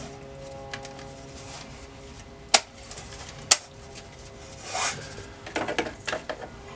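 Two sharp clicks about a second apart, then rustling and handling noise as a hand reaches into the empty radio opening of a van's dashboard.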